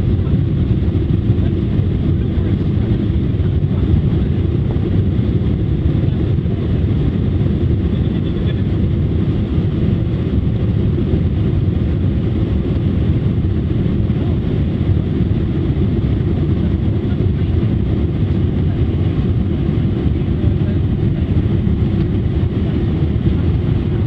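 Steady low rumble of a vehicle in motion, even throughout with no distinct knocks or tones.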